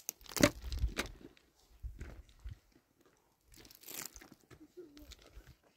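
Irregular crunching and rustling, with the loudest crunches in the first second and again about four seconds in.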